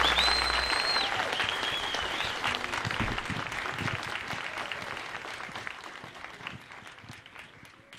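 An audience clapping, the applause fading gradually away to almost nothing.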